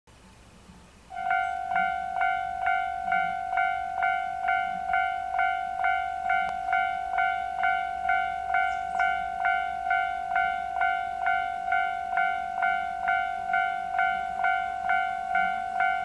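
Railroad level-crossing warning bell starting about a second in and ringing a steady, even 'kan-kan' at a little over two strokes a second: the crossing has been activated by an approaching train.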